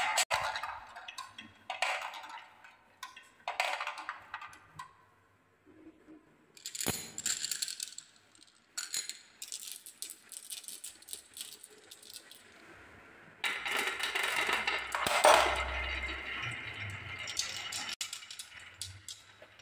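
Glass marbles rolling and clattering along a wooden marble-run track, clicking against the wood and each other in short bursts. About two-thirds of the way through, a handful of marbles rolls down together in a longer, louder continuous rattle with a dull knock.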